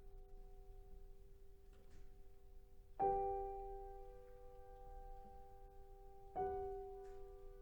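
Soft background keyboard music, piano-like: two sustained chords struck about three seconds apart, each ringing on and slowly fading.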